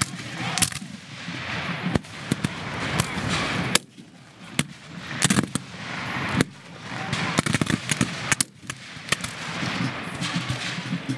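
Reproduction Civil War black-powder muskets firing in scattered, irregular shots from an infantry line, some shots close together, others a second or more apart.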